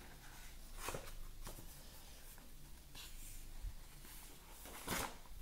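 Thick paper pages of a colouring book being handled and turned: a few short, soft rustles and brushes of paper, the loudest near the end.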